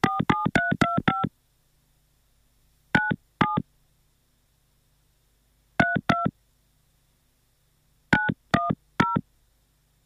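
Telephone keypad (DTMF) tones as a phone number is dialled: a quick run of beeps in the first second or so, then two pairs of beeps a few seconds apart and a group of four near the end.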